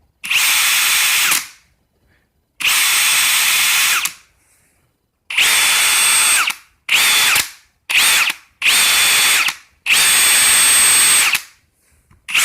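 Ridgid Octane cordless hammer drill in speed 2, run in about eight short trigger pulls of up to a second and a half each, spinning down between pulls. It makes a grinding noise that the owner takes for a defect and calls real bad.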